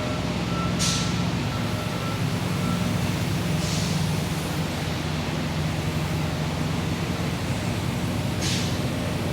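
Heavy truck's diesel engine idling steadily, with short sharp hisses of compressed air four times and a faint intermittent beeping in the first few seconds.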